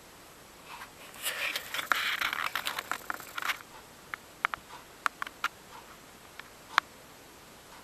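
Handling noise: about two seconds of rustling and scraping, then a few scattered sharp clicks, the loudest near the end.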